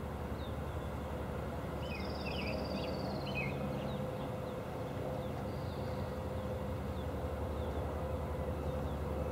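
Steady low drone of a motor boat's engine across open water, with a few bird chirps and a short falling whistle about two to three seconds in.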